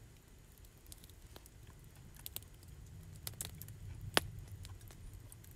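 Campfire crackling faintly, with a few scattered sharp pops over a low steady rumble.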